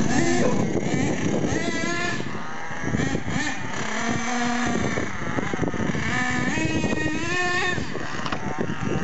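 Small two-stroke engine of an RC monster truck running hard, its pitch repeatedly rising and falling as the throttle is worked.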